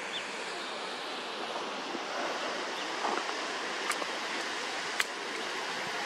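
Steady rushing of a distant waterfall falling into a canyon, with a couple of short, sharp clicks about four and five seconds in.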